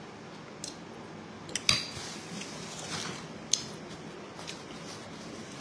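Eating sounds: soft chewing of a mouthful of soup, with a few short clinks of a spoon against the bowl, the sharpest about a second and a half in.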